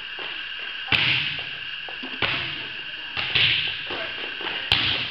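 Volleyball being struck by players' hands in a drill: four sharp smacks about a second apart, each ringing out in the echo of a large hall.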